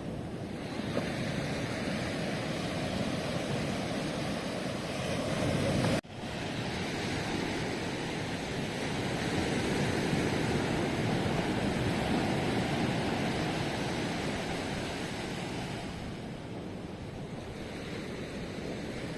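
Ocean waves breaking and washing on the shore, a steady rush that swells and eases. The sound cuts out for an instant about six seconds in, then resumes.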